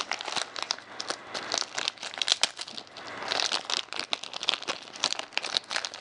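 Clear plastic wrapping crinkling and crackling as a keyless drill chuck is handled in it, in quick irregular crackles.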